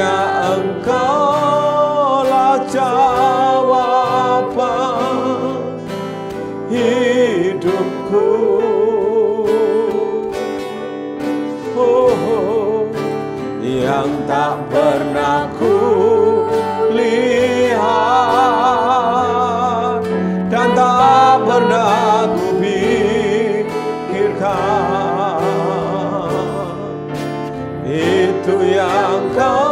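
A man and a woman singing a slow Indonesian-language worship song with vibrato over guitar accompaniment.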